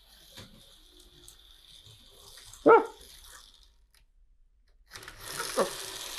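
LEGO 6399 Airport Shuttle monorail's small electric motor whirring as the train runs along the track. It falls silent for about a second past the middle, then starts again louder and steadier. There is one short voice-like sound a little before the pause.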